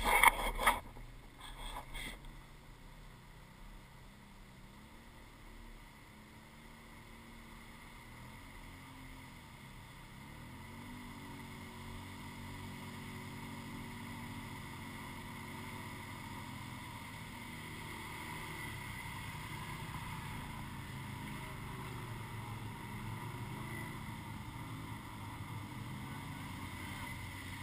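ATV engines revving and running unevenly as several quads come through muddy water, faint at first and growing louder from about ten seconds in. A brief louder noise in the first second.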